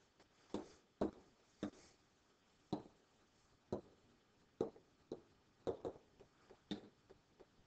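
Short, light taps and clicks of a stylus on a pen tablet while highlighting on screen, about a dozen of them at an irregular pace.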